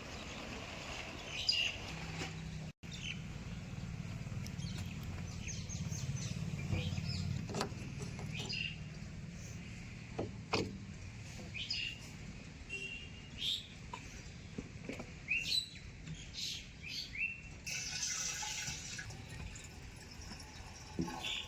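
Small birds chirping: many short, high calls scattered throughout, over a faint low hum that is strongest in the first half.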